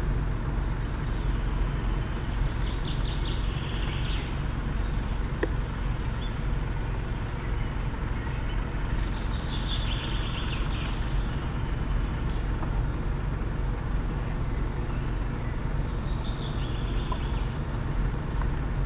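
A songbird singing three short phrases that fall in pitch, about every seven seconds, over a steady low rumble on the microphone.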